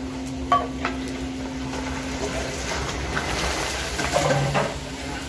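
Krupuk mawar crackers frying in a large wok of hot oil, a steady sizzling hiss, with two sharp knocks of the metal spatula and wooden stirring paddle against the wok about half a second and a second in. A steady low hum runs underneath.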